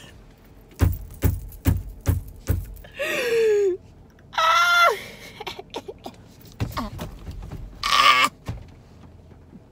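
A teenage girl laughing hard in separate high, squealing bursts. A quick run of low thumps starts about a second in.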